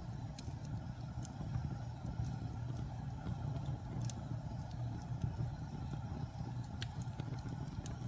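Wood fire burning in a fireplace: a steady low rumble of flames with scattered sharp crackles and pops at irregular moments.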